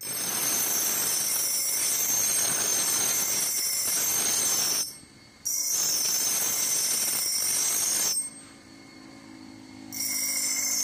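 Steel axe blade ground against a spinning grinding wheel, making a steady high-pitched grinding hiss. It breaks off briefly about five seconds in, then for nearly two seconds near the end, when only the wheel's motor hum is left, before the grinding starts again.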